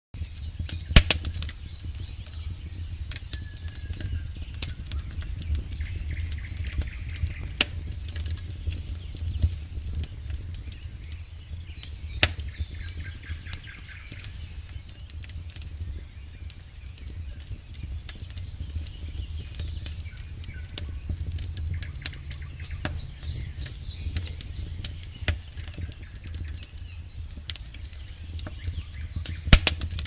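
Wood campfire crackling, with irregular sharp pops over a low steady rumble; the loudest pops come about a second in, around twelve seconds in and near the end.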